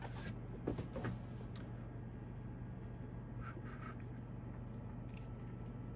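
Quiet room tone with a steady low hum and a few soft clicks: several in the first second and a half, then a couple more around three and a half and five seconds in.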